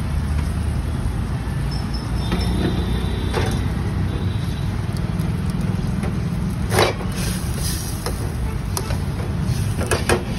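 A metal spatula stirs noodles in an aluminium saucepan, knocking sharply against the pot once about seven seconds in, with a few lighter clicks near the end. A steady low rumble runs underneath.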